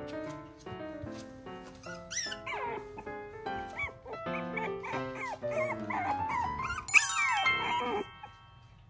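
Shiba Inu puppy whimpering: a series of high, wavering whines from about two seconds in, loudest near the end. Light background music with keyboard notes plays underneath and stops about a second before the end.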